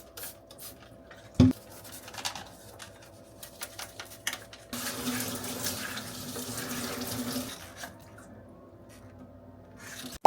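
Tap water running into a sink for about three seconds, starting near the middle, with scattered clicks and a single knock about a second and a half in.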